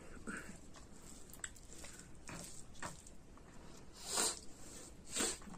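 Fingers working rice and pork curry on a plate close to the microphone: faint soft squishes and small clicks, with two louder wet squelches about four and five seconds in.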